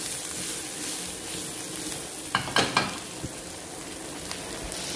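Sliced onions and garlic sizzling steadily in butter in a wok as they are stirred, with a couple of clacks of the utensil against the pan a little past halfway.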